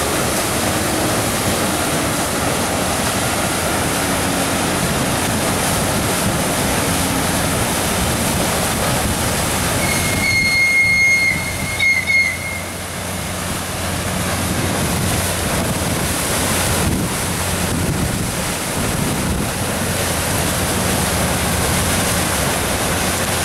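A Liberty ship's single propeller churning the water at the stern, a steady rushing and splashing of prop wash over a low hum. About ten seconds in, a brief high squeal sounds for a couple of seconds.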